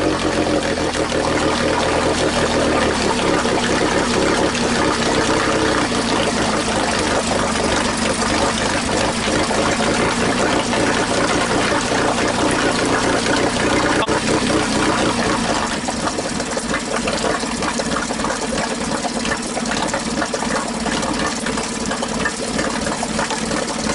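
Tohatsu 9.8 hp four-stroke outboard running at idle in neutral just after a cold start, with water splashing as its cooling water is pumped through. The choke is being eased in to settle the revs, and the engine's low rumble falls away about two-thirds of the way through.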